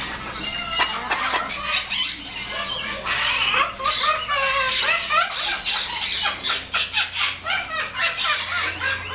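Parrots chattering and squawking, a dense unbroken run of short chirps, squeals, clicks and whistled glides.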